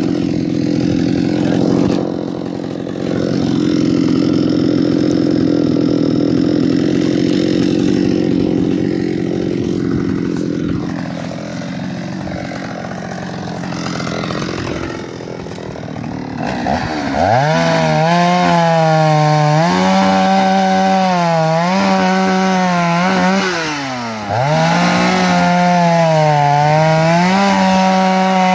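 Shindaiwa 757 two-stroke chainsaw running steadily, then revving up sharply a little past the middle and cutting wood at high revs, its pitch sagging and recovering as the chain loads in the cut, with a short dip about three-quarters of the way in.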